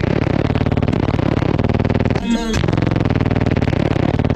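Rap track with heavy bass played loud through a car audio system of twelve Wolfram BT15 15-inch subwoofers on a 4.9K amplifier. The bass cuts out briefly about two seconds in.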